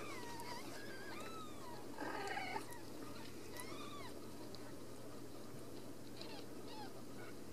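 Newborn Ragdoll kittens mewing: a run of short, thin mews that rise and fall in pitch, the loudest about two seconds in, then a few fainter mews near the end.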